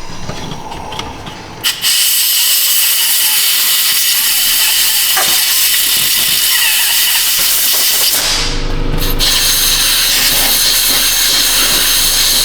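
Compressed air blowing dirt out of an electrical connector: a loud steady hiss that starts about two seconds in. A low hum joins it about eight seconds in.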